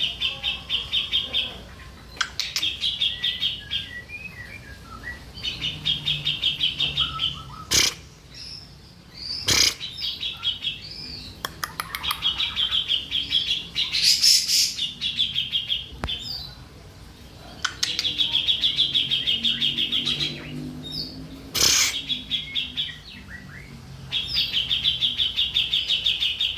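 Grey-cheeked bulbul (cucak jenggot) song: rapid, chattering trills of about one to two seconds, repeated over and over with short whistled notes between, and a few sharp clicks.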